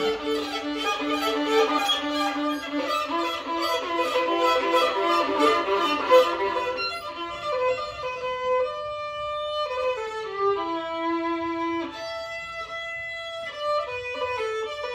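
Improvised solo violin played with the bow: a busy stretch of quick notes for about the first half, then slower, longer held notes, with a line stepping down in pitch about ten seconds in.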